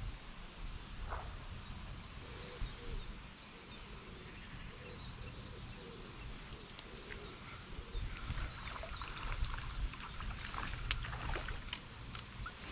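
Faint lakeside ambience: small birds chirping over a low wind rumble on the microphone. In the second half there are light clicks and water splashes as a small fish is played at the surface.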